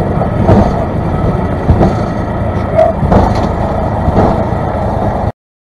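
Cabin noise of a single-engine light aircraft's piston engine at idle while the plane rolls out on the runway after landing, with a few knocks from the wheels on the pavement. The sound cuts off suddenly near the end.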